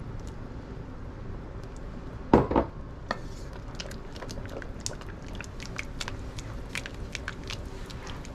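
Wooden spoon stirring a thick, creamy soup in an enamelled cast-iron Dutch oven, with many light irregular clicks and scrapes of the spoon against the pot. A single louder knock comes a little over two seconds in, just before the stirring starts.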